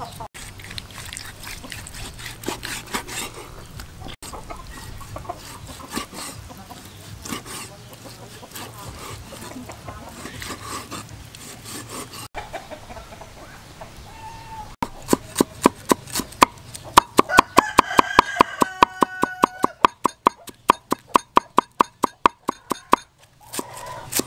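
Knife work on a wooden chopping block, small cuts and knocks with chickens clucking in the background; from about two-thirds of the way in, a cleaver chops rapidly and evenly on the block, about four strikes a second, for several seconds.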